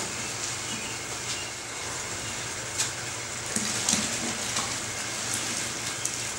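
Sparge water poured from a plastic pitcher into a cooler mash tun over the grain bed: a steady splashing pour, with a couple of light clicks about three and four seconds in.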